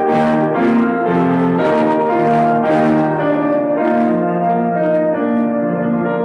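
Instrumental keyboard music: slow, sustained chords that change about once a second, each new chord struck sharply.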